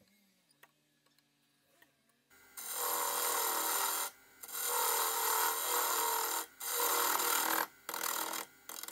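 Parting tool cutting into a padauk blank spinning on a wood lathe, making a steady scraping hiss as the end of the handle is turned down to a tenon. The cutting starts after about two seconds of near silence and runs in four stretches, with short gaps between them.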